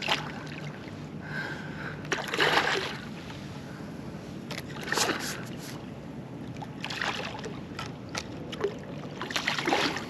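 Water splashing around a kayak in about five short bursts while a hooked redfish is fought on rod and reel.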